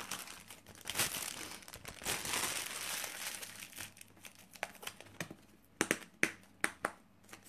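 Plastic cling film crinkling as a lump of cold porcelain clay is wrapped and handled in it, densest around the middle, followed by a few short, sharp light clicks in the second half.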